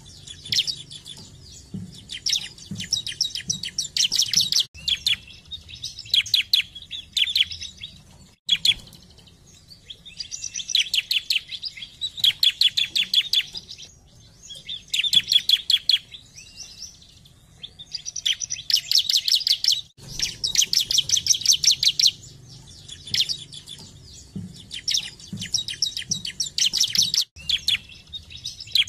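Bar-winged prinia (ciblek) singing: bursts of rapid, high repeated chirping notes, each a second or two long, coming again and again with short pauses between.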